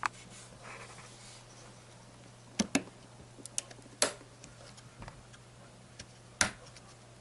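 Sharp plastic clicks and taps, five or six of them spaced a second or so apart, as server RAM modules are handled and pressed into their memory slots, over a faint steady hum.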